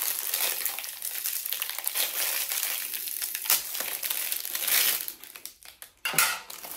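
Clear plastic wrapper crinkling as a brown plastic MRE spoon is pulled out of it, stopping about five seconds in.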